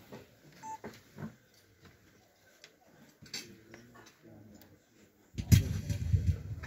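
A room full of people standing in a minute of silence: faint shuffling and a few scattered small clicks. About five seconds in, a loud low rumbling rustle with knocks takes over.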